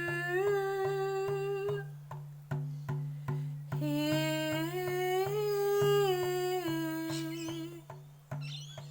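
A woman's wordless singing in long held notes that glide up from one pitch to the next, in two phrases with a pause between. Under it a plucked string instrument repeats a low note about two or three times a second.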